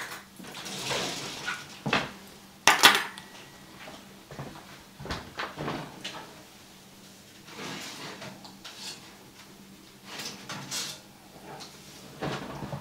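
Kitchen handling noise: forks clinking in a cutlery drawer and the drawer shutting, with sharp clacks in the first three seconds. Later come quieter knocks and clinks as an oven door is opened and a foil-lined baking pan is drawn out.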